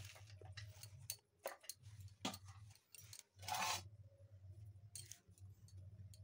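Faint scattered clicks and rustles of fresh chopped spinach being tipped from one steel bowl into another and spread by hand, with a longer rustle about three and a half seconds in. A steady low hum runs underneath.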